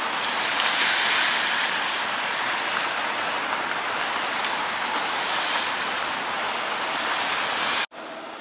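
Street noise with a tram passing along its track: a steady rushing wash without any clear tones. It cuts off abruptly near the end and gives way to a quieter outdoor background.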